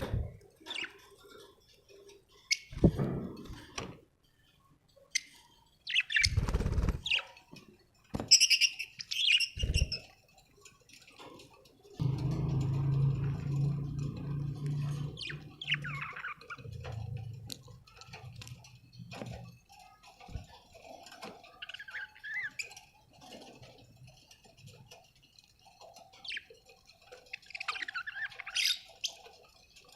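Budgerigars chirping in short, scattered calls, among several sudden knocks and rustles in the first third. A low steady hum runs for several seconds in the middle.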